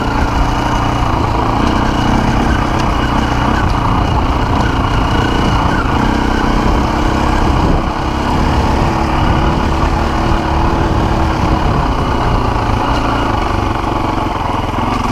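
Dirt bike engine running while riding at a steady pace over grass, easing off briefly about halfway.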